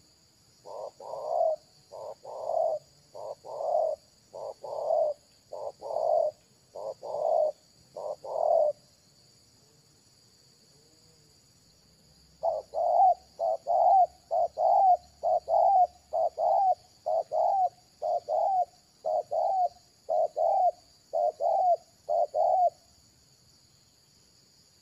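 Spotted dove cooing in two long series of repeated coos, with a pause of about four seconds between them; a steady high insect drone runs underneath.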